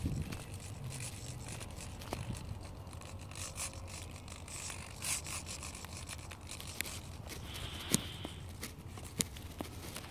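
Handling noise from a handheld camera being carried while walking: rubbing and scraping, with scattered light clicks over a steady low rumble.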